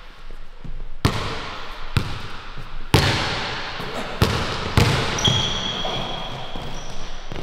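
A basketball dribbled hard on a hardwood gym floor, about five bounces roughly a second apart, each echoing in the hall. Sneakers squeak on the floor in the second half.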